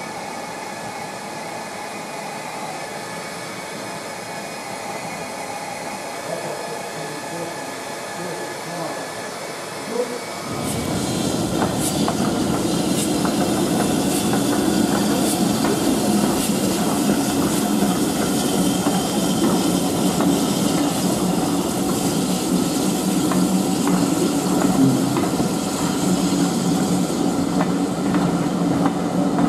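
Steady hiss and hum with faint voices in a locomotive shed. About a third of the way in it gives way to a louder moving steam train: BR Standard Class 4MT 2-6-0 No. 76079 hauling coaches past, its wheels clicking irregularly over rail joints under a steady rumble.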